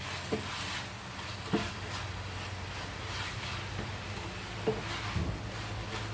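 Pork and salted mustard greens sizzling steadily in a pan as they are stirred, with the utensil knocking against the pan about four times.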